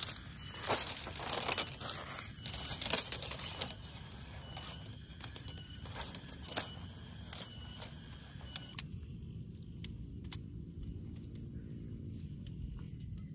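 Objects being handled: a run of clicks, rustles and clatter over steady, high insect chirping. About nine seconds in, the sound cuts off abruptly to a quieter low rumble with a few faint clicks.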